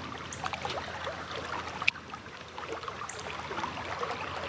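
Shallow creek water running, with scattered small splashes and one sharp click a little under two seconds in.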